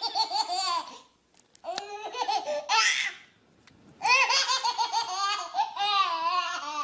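A baby laughing hard in three bouts of rapid, high-pitched laughter separated by short pauses; the last and longest bout starts about four seconds in.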